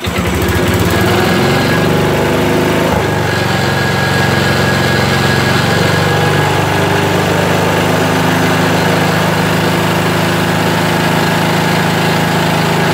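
Briggs & Stratton vertical-shaft mower engine catching on a recoil pull and running steadily on full choke. Its speed shifts about three seconds in, then settles into an even run.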